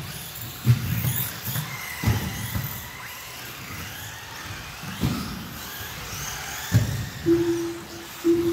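Electric RC race cars running on an indoor carpet track: high motor whine rising and falling as they speed up and brake, with knocks from cars landing and striking the track, about four in all. Near the end a short steady beep sounds twice.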